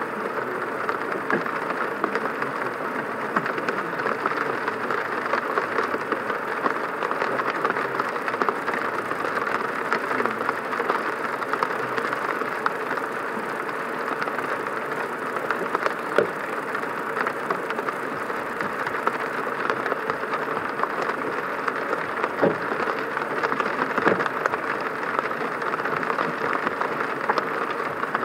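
A car driving in the rain: steady road and engine noise mixed with rain spattering on the car. There are a few sharper ticks about two-thirds of the way through and near the end.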